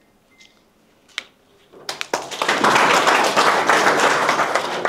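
A small group clapping, starting about two seconds in after a quiet stretch with a single click.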